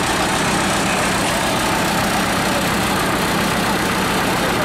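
JCB backhoe loader's diesel engine running steadily at idle.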